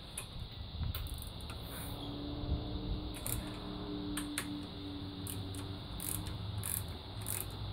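Socket ratchet clicking as it backs off a motor mount bolt, with short repeated clicks about two a second in the second half.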